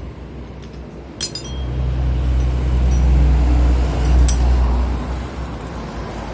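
Sharp metallic clinks of metal parts or tools being handled, one about a second in and another about four seconds in. Between them a deep low rumble swells up and fades away over a few seconds.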